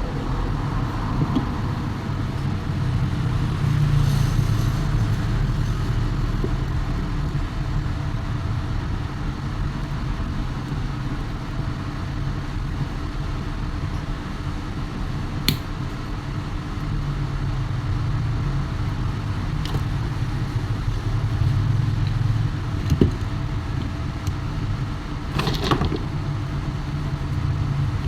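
Steady low rumble of background noise that swells and fades, with a few sharp clicks from handling the fan's parts, the loudest about two-thirds of the way in.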